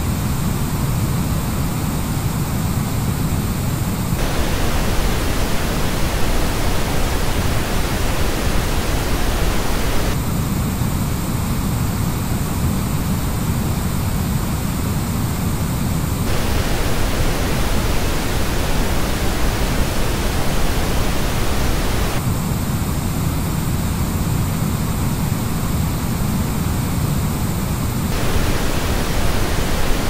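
Pink-noise test signal that switches about every six seconds between the flat original reference noise and the same noise as reproduced by a Razer BlackShark V2 Pro gaming headset. The headset's version is heavier in the bass, with dips in the mids and treble.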